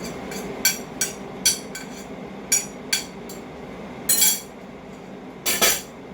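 A utensil clinking and knocking against a cooking pot of soup: about seven sharp clinks in the first three seconds, then two longer scraping rattles later on.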